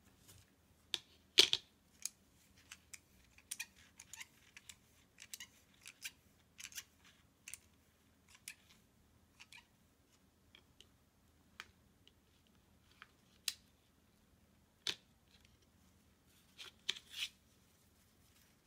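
Handling noise: scattered sharp clicks and short light scrapes as a DDR2 RAM module, its plastic clamshell tray and a steel vernier caliper are handled and the caliper jaws are slid and closed on the module. The loudest click comes about a second and a half in, with more near the end.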